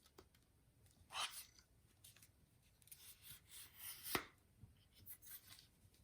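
Faint handling noises: brief rubbing and scraping of objects being moved about, with one sharp click about four seconds in.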